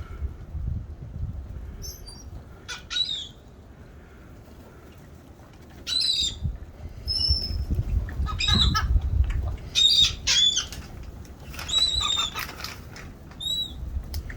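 Birds giving short, high calls, a few at first and then several in quick succession from about six seconds in, over a steady low rumble.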